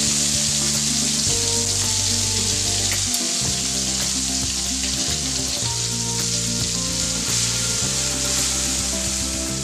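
Freshly ground chilli, shallot and garlic spice paste sizzling steadily in hot oil in a stainless steel wok: the sauté stage, frying the paste until fragrant. A spatula starts stirring it near the end.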